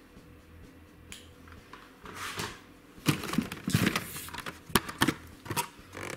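Hot Wheels blister-pack cards being handled: plastic and card rustling, with a brief rustle about two seconds in, then a run of sharp plastic clicks and crackles over the last three seconds.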